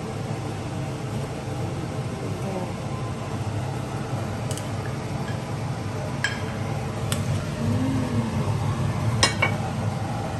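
Kitchenware clinking: a handful of sharp clinks from a ceramic bowl, plates and a wooden spatula against a wok as fried rice is scooped into the bowl and turned out onto a plate, over a steady low hum.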